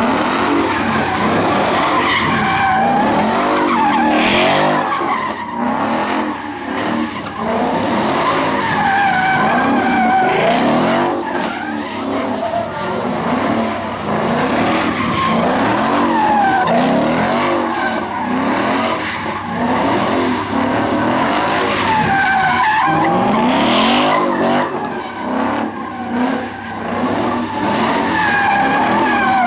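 A vehicle doing donuts: tires squealing continuously while the engine revs up and down over and over.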